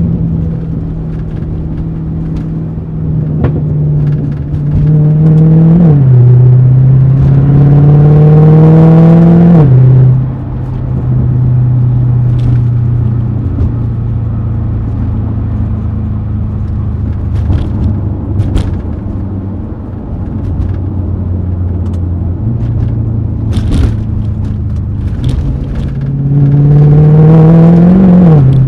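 Mercedes-AMG E63's V8 pulling hard through the gears: the revs climb and drop sharply at upshifts about 6 and 10 seconds in. It then cruises steadily before climbing again to another upshift near the end, with scattered short exhaust crackles.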